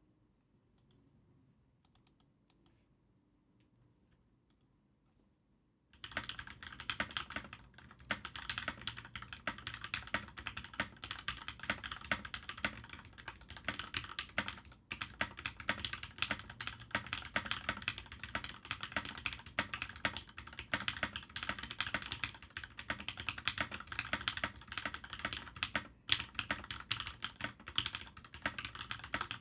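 Fantech Maxfit61 mechanical keyboard with linear Gateron X switches being typed on fast and continuously, after about six seconds of near quiet with a few faint clicks. The typing stops briefly about halfway through and again near the end.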